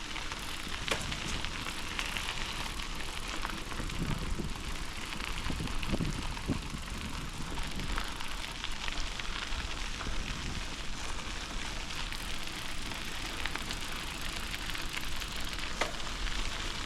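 Bicycle tyres rolling along a gravel rail-trail surface: a steady crackling hiss sprinkled with small ticks.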